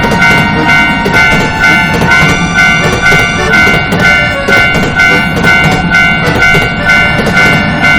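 Japanese railroad-crossing alarm ringing, an even two-tone clang repeating about twice a second, over the rumbling run of a passing train.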